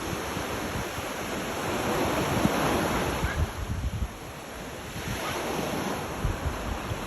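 Ocean waves washing onto the shore: the surf swells to its loudest about two to three seconds in, drops back, then builds again. Wind buffets the microphone with low rumbling gusts.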